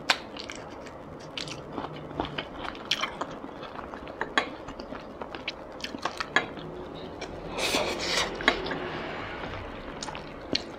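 Close-miked chewing and wet mouth sounds of a person eating, with many small clicks and crackles and a louder stretch of chewing about three-quarters of the way through. Faint taps of wooden chopsticks against a rice bowl come in between.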